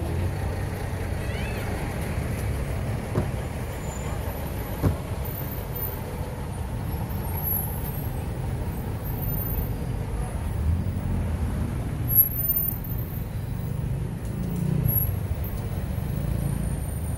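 Busy city street at night: a steady rumble of passing traffic with people's voices in the background and a few brief sharp knocks.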